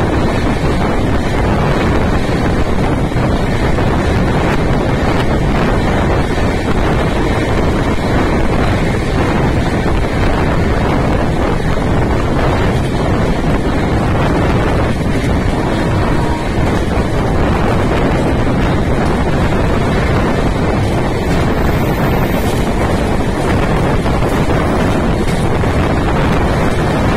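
Loud, steady wind rush buffeting the microphone over the running noise of a moving train, heard from aboard at speed.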